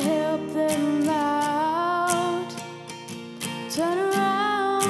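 A song playing: a voice singing long, drawn-out notes over instrumental backing, with a quieter stretch in the middle.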